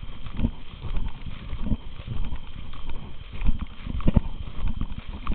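Footsteps of a hunter walking across grassy ground, a series of dull low thuds about once a second, picked up close to the camera.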